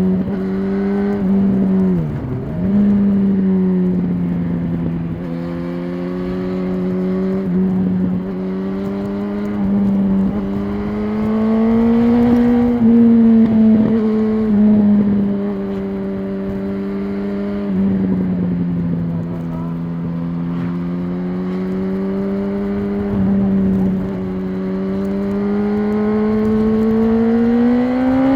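2006 Yamaha R1's inline-four engine with stock exhaust, heard from a microphone in the rider's backpack while riding at fairly steady revs that rise and fall gently. Revs drop sharply and pick up again about two seconds in, and climb near the end.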